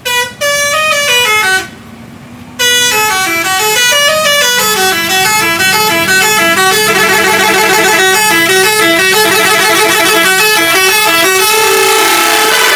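Telolet multi-tone bus horn playing a stepped tune of short notes stepping up and down. A brief run comes first, then after a pause of about a second a long unbroken run begins that grows denser, with several horn notes sounding together.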